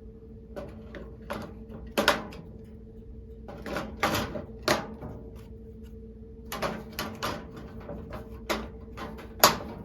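Scattered clicks and knocks from handling a steel rifle safe, as AA batteries are fitted into the battery case in its door, over a faint steady hum.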